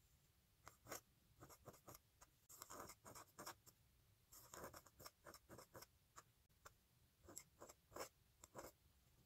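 A calligraphy pen's steel nib scratching across paper as letters are written, in short stroke-by-stroke scrapes with brief pauses between groups of strokes. Faint.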